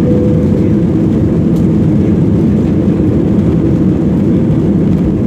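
Steady, loud, low roar of an airliner's engines, unchanging in level.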